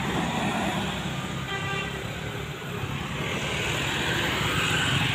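Road traffic: a Mitsubishi Colt T120SS pickup truck's engine running as it drives past close by, then small motorbike engines coming up the road. The sound holds at a steady level throughout.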